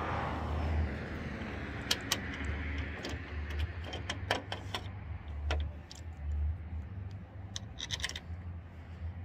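Light metallic clicks and rattles as a replacement Solera power-awning motor is handled and fitted onto the awning arm's aluminium gear housing, thickest in the first half and again near the end, over a steady low rumble.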